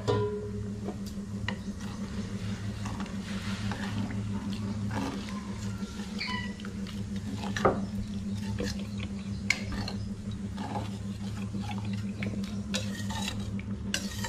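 Steel ladle stirring thick masoor dal in a steel pot, with scattered soft taps and scrapes against the pot, over a steady low hum.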